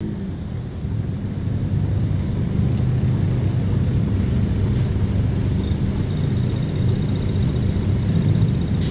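A car engine running with a steady low rumble. A faint, thin, high steady tone joins it a little past halfway.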